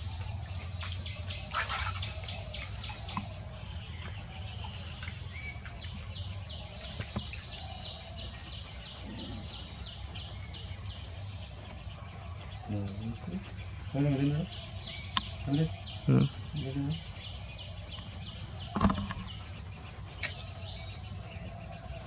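Insects calling: a steady high drone with repeated trains of rapid ticking. A few short low calls come in about two-thirds of the way through.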